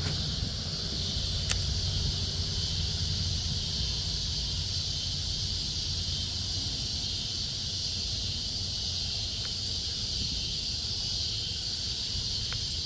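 Steady, unbroken high-pitched chorus of insects at dusk, over a low rumble, with a faint tick or two.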